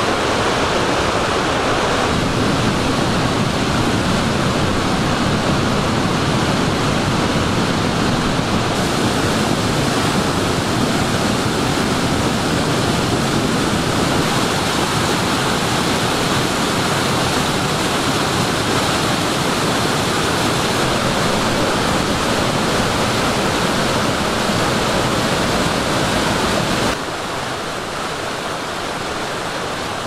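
Steady rushing of mountain stream water and a small waterfall. It shifts slightly at a couple of cuts and drops a little in level near the end.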